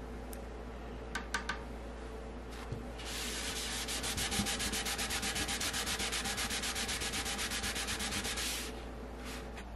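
Scouring sponge scrubbing toothpaste into a hair-dye stain on a wooden surface: fast, even back-and-forth rubbing strokes that start about three seconds in and stop abruptly near the end.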